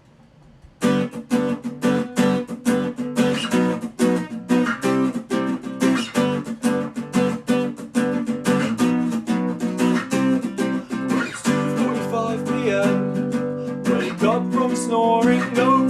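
Music: an acoustic guitar strummed in a steady rhythm, starting about a second in.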